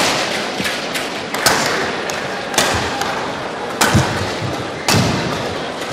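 Badminton rally: sharp racket hits on the shuttlecock about once a second, some with low thuds from the players' feet landing on the court, over a steady background noise of the arena.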